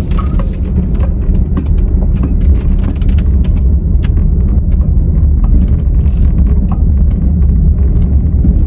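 Car on the move: a loud, steady low rumble of road and engine noise, with scattered light clicks.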